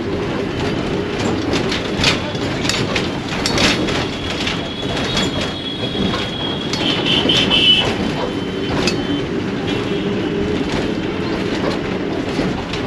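Inside an old city bus under way: a steady engine and road rumble, with short clicks and knocks of the body and fittings rattling throughout. A thin high-pitched tone holds for a few seconds near the middle.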